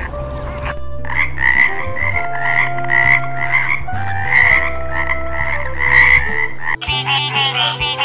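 Frogs croaking in a quick run of repeated calls, starting about a second in, over a steady low hum; near the end it changes to a faster, higher chattering call.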